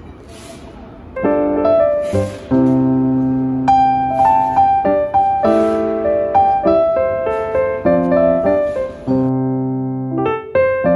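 Piano music, sounding like an electric piano, plays chords and notes that start about a second in, after a faint steady mechanical noise.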